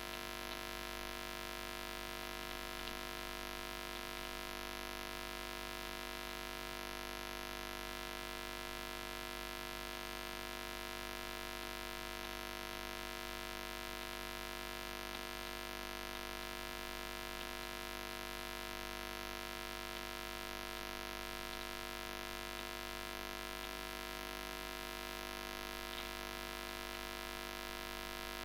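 Steady electrical hum of the recording setup: a constant buzz of several steady tones over faint hiss, with a couple of faint clicks.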